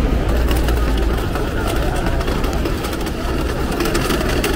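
Busy pedestrian plaza ambience: a steady low rumble with crowd chatter and footsteps, with faint light clicks running through it.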